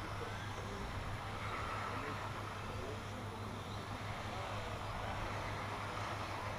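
Electric radio-controlled model racing trucks running laps on an asphalt track: a steady whir of small motors and tyres with a faint whine that rises and falls, over a constant low hum.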